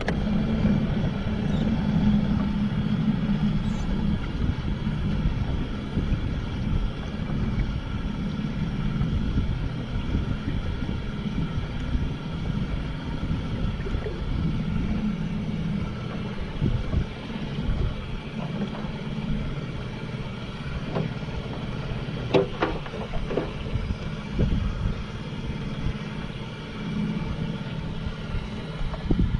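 An engine running steadily at an even pitch, with wind noise on the microphone and a few light knocks about three-quarters of the way through.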